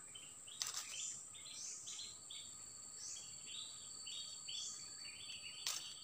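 Forest ambience: a steady high-pitched insect drone, with a bird repeating short chirps about twice a second. Two sharp clicks, one just under a second in and one near the end.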